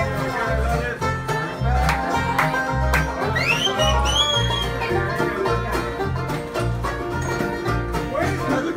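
Live bluegrass band playing: banjo, fiddle and acoustic guitar over a steady bass beat of about two notes a second, with a few sliding high notes about halfway through.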